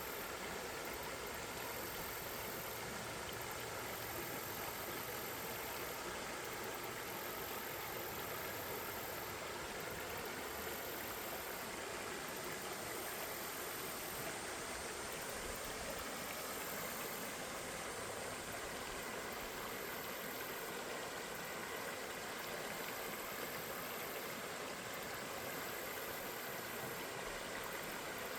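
A river flowing steadily, with a constant rushing sound and a faint, very high hiss that comes and goes every second or two.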